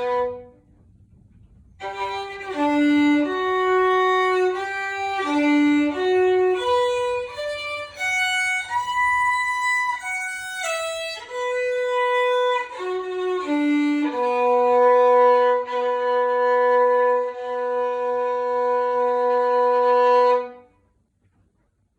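Solo violin playing a melody: one note ends just after the start, then after a short pause a phrase of moving notes, closing on one long held low note of about six seconds that ends the piece.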